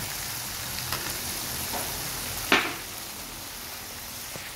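Frog meat sizzling steadily in a hot steel wok with fish sauce in it, with a few light ticks and one sharp clack about two and a half seconds in.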